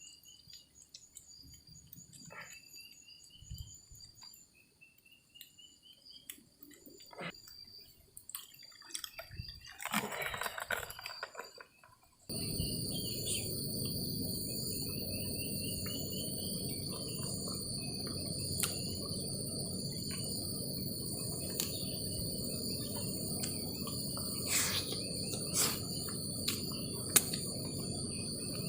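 Insects, crickets, trilling in a steady high chorus with scattered chirps and a brief rustle about ten seconds in. About twelve seconds in the sound cuts abruptly to a louder insect chorus over a steady low hiss, with a few clicks near the end.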